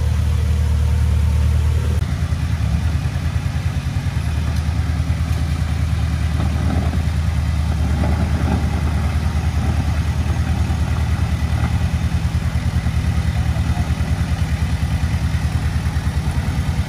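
Small diesel engine of a Komatsu D20P crawler dozer running steadily with an even low throb.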